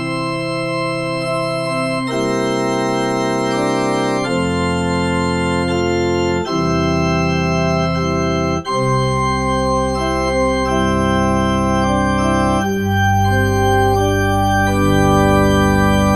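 Yamaha P45 digital piano's cathedral pipe organ voice (Organ 2), played as slow held chords that change every second or two, with deep bass notes coming in about halfway through.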